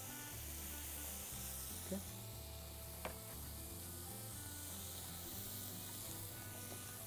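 Chicken breasts sizzling on a hot ridged grill pan, a steady hiss, with two faint clicks about two and three seconds in.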